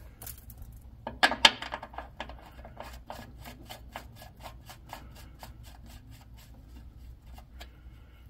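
A couple of sharp metal knocks about a second in, then a ratchet wrench clicking steadily, about five clicks a second, as a drain plug under the truck is run in.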